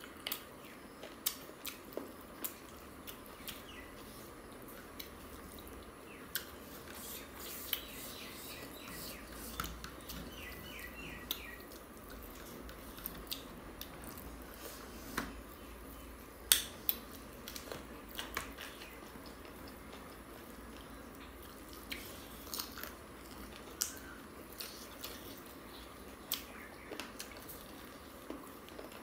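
Two people eating chicken curry and rice with their fingers, chewing and lip-smacking, with scattered sharp mouth clicks and smacks.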